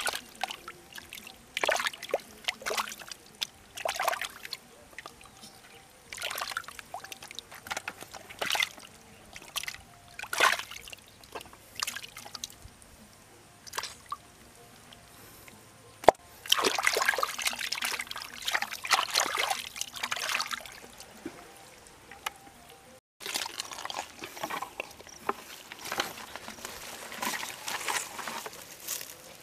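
Hands scooping and sloshing through muddy water in a shallow dug hole: irregular splashes and trickles, busiest in the second half. After a cut near the end, footsteps rustle through low weeds.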